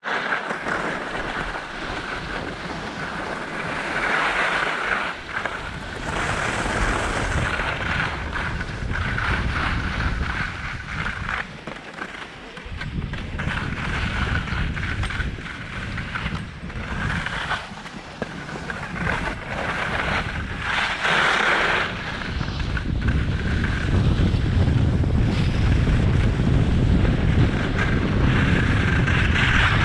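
Wind rushing over the microphone of a skier moving downhill, with skis hissing and scraping on groomed snow. The scraping swells and fades with the turns, and the rumble of the wind grows louder near the end.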